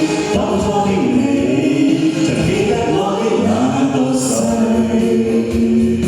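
A song sung with musical accompaniment, the voice holding long notes.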